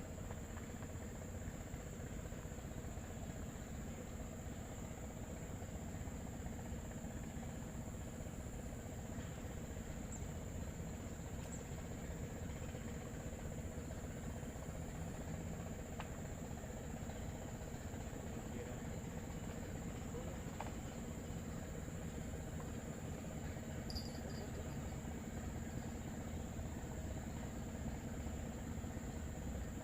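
Steady high-pitched drone of crickets or similar insects, with a low steady motor hum underneath.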